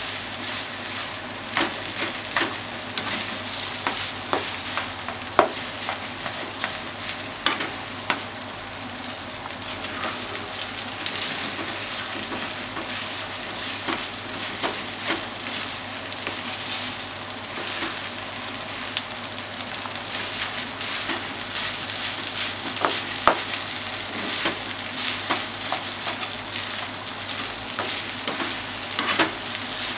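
Chicken rice sizzling in a frying pan as a spatula stirs and turns it, with frequent sharp clicks and scrapes of the spatula against the pan. A couple of the clicks, about five seconds in and again near 23 seconds, stand out louder than the rest.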